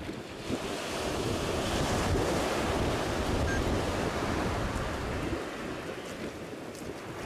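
Surf breaking and washing up the beach, with wind buffeting the microphone. It swells about a second in and eases off after about five seconds.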